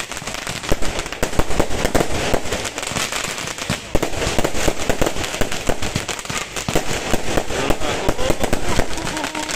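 Fireworks going off in a dense, rapid string of bangs, pops and crackles.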